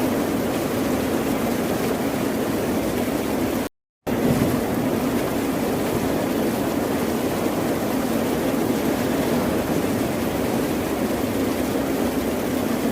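Steady, unbroken wash of ocean surf. About four seconds in it cuts out completely for a moment, then resumes.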